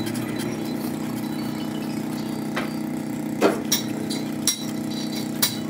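Metal parts clinking as a truck differential carrier is handled and parts are fitted by hand: about five short metallic knocks in the second half, the loudest about three and a half seconds in. Under them a steady mechanical hum from a running engine or machine.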